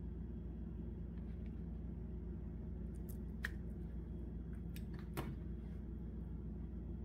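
Steady low hum with a few sharp clicks and light squishes about halfway through, as a spoonful of mayonnaise is dropped onto a bowl of salad greens.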